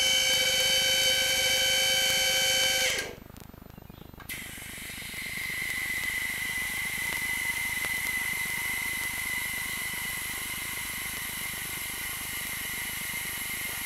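Snap-on mid-rise scissor lift: its electric hydraulic pump motor whines steadily and cuts off abruptly about three seconds in. After a second's pause a steady hiss with a thin high whistle starts as the lift is let down and the car lowers.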